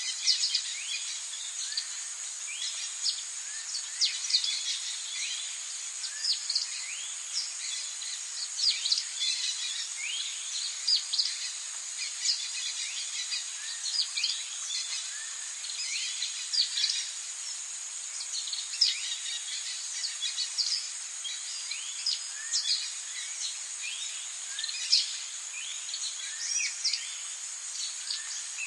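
Forest ambience: many birds calling in short, quick chirps throughout, over a steady high-pitched insect drone.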